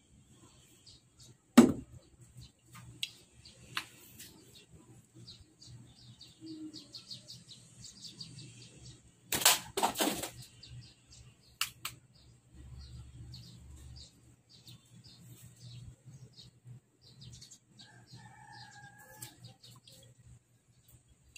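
Small birds chirping and ticking over and over. A single sharp knock comes about a second and a half in, and a quick cluster of loud knocks follows around ten seconds in.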